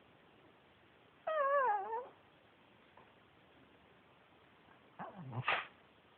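Pekingese dog 'talking': one wavering, falling whine-like call lasting under a second, about a second in. Near the end comes a short noisy huff from the dog.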